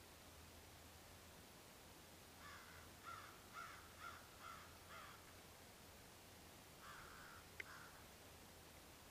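Bird calling faintly: a quick run of about six short, harsh calls, then two more a couple of seconds later, with a single sharp click between them.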